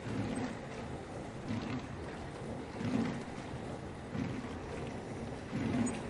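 Dishwasher running: a steady rush of water inside the machine, swelling and sloshing about every second and a half.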